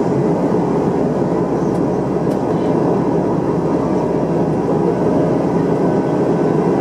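Steady cabin noise of an Airbus A321 in flight: its jet engines and the airflow over the fuselage make an even, low rushing drone.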